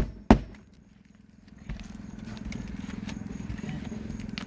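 Hammer driving a roofing nail into asphalt shingles by hand: two sharp blows right at the start, the last of a quick series. A steady low hum sets in about two seconds in.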